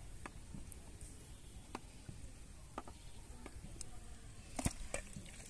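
Scattered small clicks and handling noises of hands baiting a fishing hook, a few isolated ticks with the sharpest about three-quarters of the way through, over a low steady outdoor rumble.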